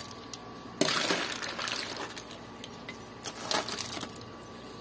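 Mussel shells clattering and clinking against a metal slotted ladle and foil tray as a seafood boil of mussels, crabs and corn is scooped and dropped. A burst of clatter starts about a second in and lasts over a second, then a few separate clinks follow.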